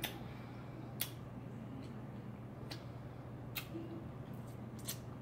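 Wet mouth sounds of a person eating and licking her fingers: five or so sharp lip smacks and clicks, roughly a second apart, over a steady low hum.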